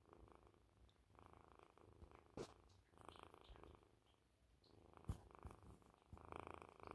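Faint purring from a kitten, coming in repeated stretches of rapid pulsing about a second long, with two short sharp clicks, one about a third of the way in and one about two-thirds in.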